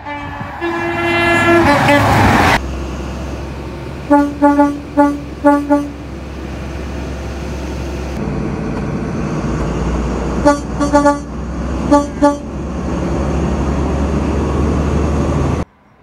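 British Rail HST (Class 43) power car horns. First a horn sounds as an HST approaches and rushes past at speed, cut off abruptly. Then a diesel power car runs with a steady low engine drum while its horn gives two runs of short toots, five in quick succession and later five more in two groups.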